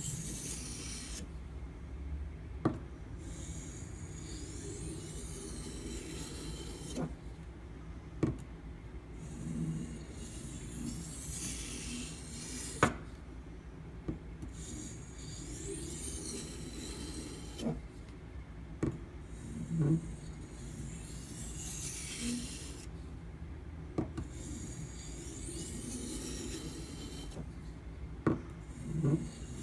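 A steel knife edge scraping back and forth on a whetstone in a guided sharpening clamp, in several spells of scraping strokes with sharp clicks between them as the guide is set down and repositioned. Sharpening passes that break off and refine the burr on a soft-steel steak knife.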